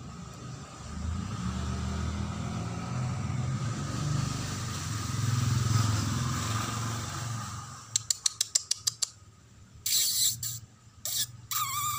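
A motor vehicle passing nearby: a low rumble that swells and then fades over most of the clip. Then a quick run of about eight sharp clicks, and near the end a kitten's short meow that falls in pitch.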